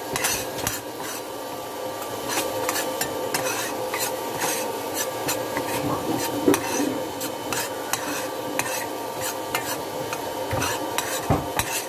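A metal spoon stirring and scraping grated coconut as it toasts brown in a stainless steel frying pan, with frequent irregular clicks of the spoon against the pan.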